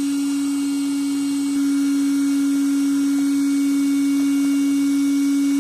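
A steady, loud tone coming from a UCD NX Pro Exlite class-D amplifier through its speaker. It stays at one pitch throughout and gets a little louder about one and a half seconds in. This is the strange sound the amplifier is being tested for.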